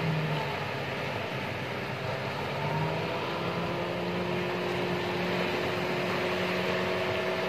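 Outrigger fishing boat's engine running at a steady pitch, over the wash of breaking surf.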